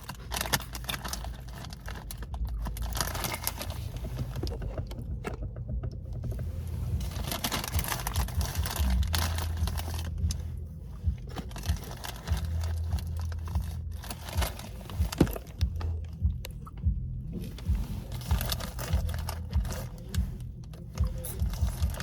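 A person chewing airy, Cheeto-shaped Flamin' Hot puffed corn snacks, with crunches coming over and over.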